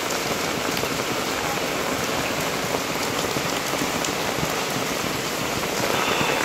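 Heavy rain falling steadily, an even hiss of a tropical downpour on the ground and surfaces.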